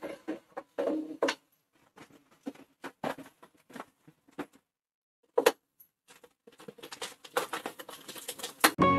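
Lumps of jaggery crumbled by hand and dropped into a metal pot, with a plastic bag crinkling. Irregular soft ticks and rustles, turning to denser crinkling near the end as the bag is emptied.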